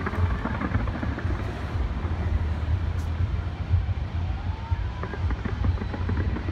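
A skyscraper fireworks display going off in a dense, continuous barrage: a deep rumble of booms with rapid crackling on top.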